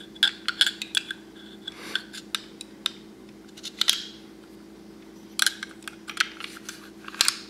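Steel parts of a Tokarev pistol clicking and scraping as they are fitted by hand: the hammer assembly pressed into the frame, then the slide worked onto the frame. Clusters of sharp metallic clicks, with a brief scrape about four seconds in.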